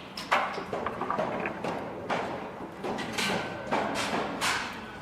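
Construction site ambience: irregular knocks and clatter of tools and materials being struck and handled, with a short metallic ring about three seconds in.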